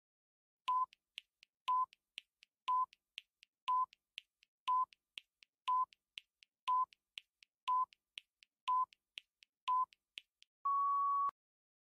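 Countdown timer sound effect: a short electronic beep once a second, ten times, with fainter ticks between the beeps, then a longer, slightly higher tone near the end as the count reaches zero.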